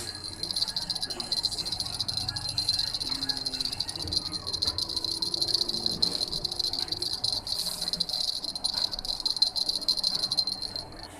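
Insects trilling: a steady, high, finely pulsing buzz that cuts off sharply near the end.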